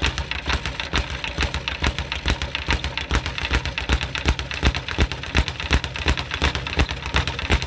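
Leather speed bag punched at full speed, rebounding off its overhead rebound board in a rapid, even rattle of many hits a second.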